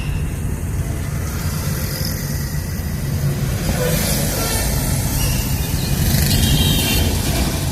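Bus running over the road, heard inside the cabin: a steady low rumble with body rattles and thuds from a weak suspension. The rider thinks the air suspension balloons have failed, leaving the bus to knock down onto the leaf springs.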